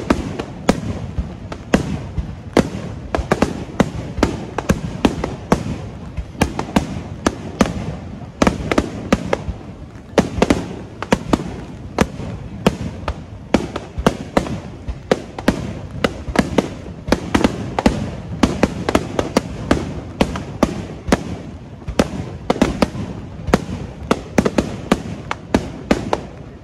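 Aerial firework shells bursting in a fast barrage, many sharp bangs a few a second with a low rumble between them, and the hiss of heavy rain underneath.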